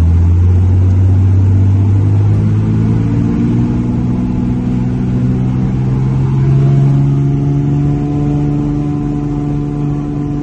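Light aircraft's piston engine and propeller heard from inside the cabin, running loud and steady, its pitch rising slowly throughout.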